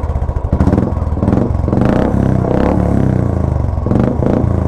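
Royal Enfield Classic 350's single-cylinder engine revved through an aftermarket straight-cut exhaust with its dB killer removed. It is blipped several times, the note rising and falling with each blip.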